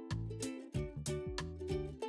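Background music: a plucked-string melody over a bass line with a steady beat.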